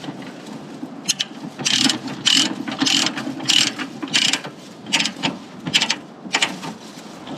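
Ratchet load binder being cranked on a chain, its pawl clicking in a burst with each stroke of the handle, about two strokes a second.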